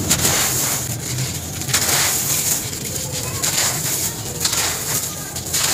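A pressed block of fine, gritty sand crumbled and crushed between the hands, giving repeated crunches with the hiss of grains pouring down onto loose sand.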